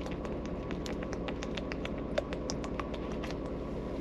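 Quick, irregular clicks and crackles of a plastic water bottle being handled and drunk from, several a second, over the steady low hum of a truck cab.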